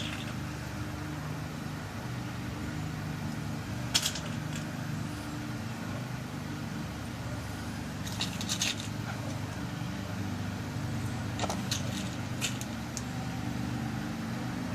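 Small metallic clicks of tiny bottom pins and a handling tool as new key pins are loaded into a pin-tumbler lock cylinder: a single click about four seconds in, a quick cluster about eight seconds in, and several more near the end. Under them is a steady low hum.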